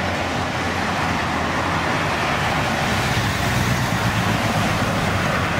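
Steady road traffic noise: a motor vehicle's engine hum under a wash of tyre and street noise.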